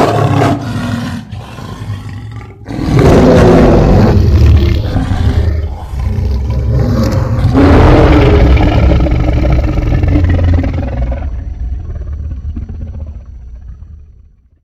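Roar sound effect of an animated giant tyrannosaur: a few short growls, then two long, loud roars back to back, the second trailing off near the end.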